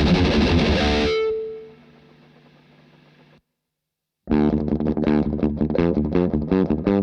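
Distorted electric guitar, a PRS played through a DemonFX R3 pedal and a Nux Amp Academy preamp, plays a heavy riff that stops about a second in, leaving one note ringing and fading. After a moment of silence, a fast run of short, choppy distorted chords starts about four seconds in.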